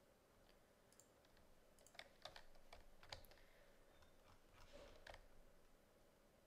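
Near silence with a handful of faint computer keyboard key clicks, bunched in the middle, over a faint steady hum.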